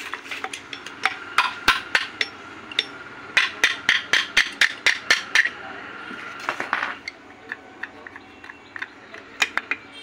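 Metal engine parts clinking and tapping as a motorcycle crankcase is worked on by hand during teardown, with a quick run of sharp metallic taps in the middle. A steady high whine in the background stops about two thirds of the way through.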